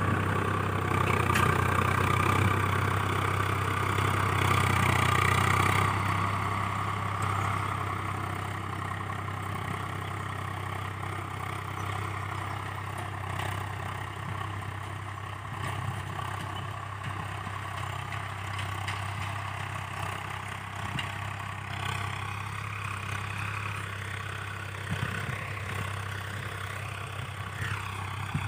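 Tractor diesel engine running steadily while ploughing, louder for about the first six seconds and then a little quieter.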